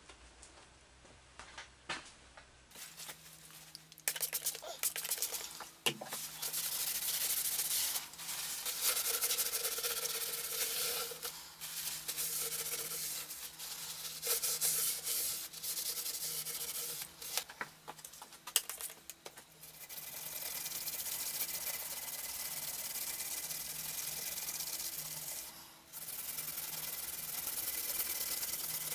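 Hand scrubbing of the cast-iron slideways of an Atlas 7B metal shaper, with a cloth rag and a green abrasive pad rubbing back and forth on the metal. It sets in a few seconds in and comes in long spells of rough scrubbing with brief pauses.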